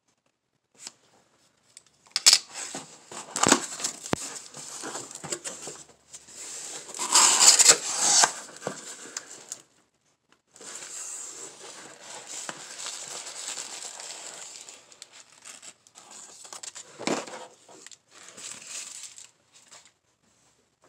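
Packing tape tearing off a cardboard shipping box and the flaps pulled open, with plastic air-pillow packing crinkling, in an uneven run of tearing and rustling bursts.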